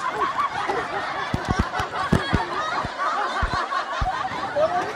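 Snickering laughter, a run of short repeated laugh sounds, with a few dull low thumps through it.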